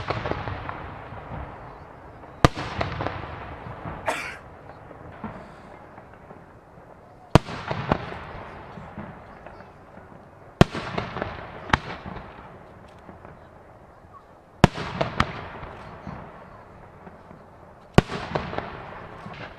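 Aerial firework shells bursting in the sky, a sharp boom every few seconds, each followed by a long rolling echo that fades away.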